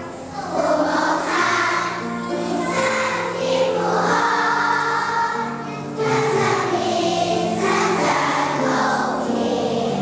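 A kindergarten children's choir singing a Christian song about parents' love together, in sustained phrases with short breaks between them.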